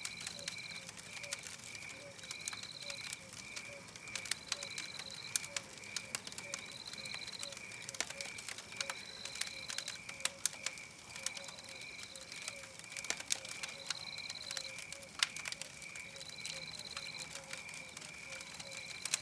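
Wood fire crackling with frequent sharp pops, over a night-time chorus of animal calls: a steady run of quick chirps, a higher trill that comes back every two seconds or so, and a low pulsing call beneath.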